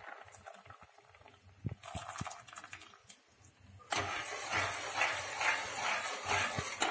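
A slotted ladle stirring jaggery syrup into cooked rice and milk in a metal pressure cooker pot, scraping around the pan about twice a second. The stirring starts about four seconds in, after a few soft clinks while the syrup is tipped in.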